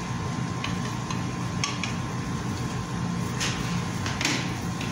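Wooden spatula stirring gourd and egg in a metal frying pan: a few short scrapes against the pan, the longest two near the end, over a steady low hum.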